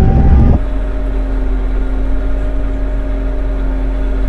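Kioti RX7320 tractor's diesel engine heard from inside the cab. At first it is loud with a rising whine. About half a second in the level drops suddenly, and from then on the engine runs steadily with an even hum.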